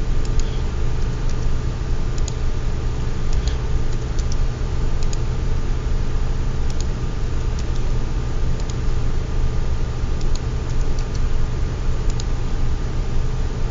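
Irregular clicks of a computer mouse and keyboard, about one a second, over a loud steady low hum with a few faint steady tones.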